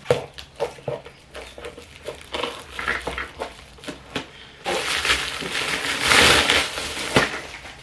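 Packaging crinkling and rustling with many small clicks as a delivery parcel is cut open and unwrapped, with a louder, longer rustle from about five to seven seconds in.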